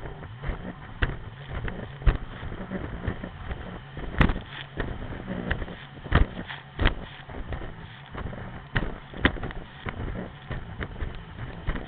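Sea-Doo RXP-X 255 jet ski running at speed over choppy water: a steady engine drone under wind buffeting on the microphone, broken by irregular hard knocks and thumps as the hull slams across the waves.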